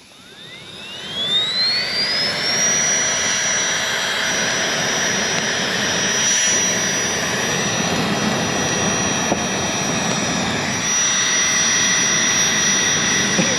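Small electric sleeping-pad inflator blower spinning up over about two seconds to a steady high whine with rushing air as it blows into a campfire. The whine starts to drop in pitch at the very end as it is switched off.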